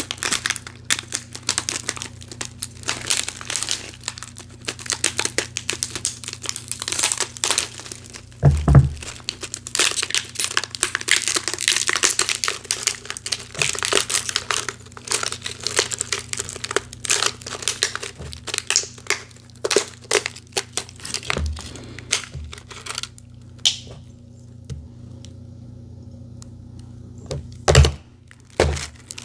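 A plastic water bottle of refrozen ice being squeezed and twisted in the hands, the thin plastic crinkling and the ice inside cracking as it breaks up. The crackling eases off about three-quarters of the way through, and there is a dull thump about a third of the way in and another near the end.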